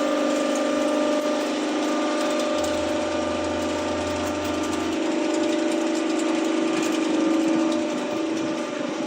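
QT4-15 concrete hollow block making machine running, a steady mechanical hum with a fast rattle. A deeper low hum comes in about two and a half seconds in and stops about five seconds in.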